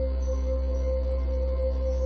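Calm ambient music: a held, unchanging drone with a deep low hum underneath and a steady mid-pitched tone on top.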